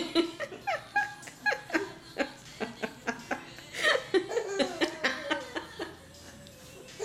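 Baby laughing in a string of short giggles, tickled by dogs licking her face and chest.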